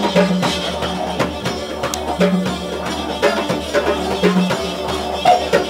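Live band music built on a didgeridoo's steady low drone, with quick hand-percussion strokes over it and a stronger low note that comes back about every two seconds.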